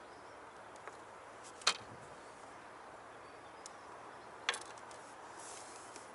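Small fishing tackle being handled on a side tray: two sharp clicks about three seconds apart, the first the louder, with a couple of fainter ticks, over a steady faint background hiss.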